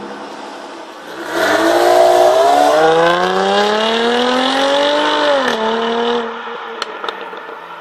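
Supercharged Jaguar F-Type idling steadily, then an F-Type accelerating hard away. The engine note climbs for about four seconds, drops at an upshift, then fades as the car pulls into the distance.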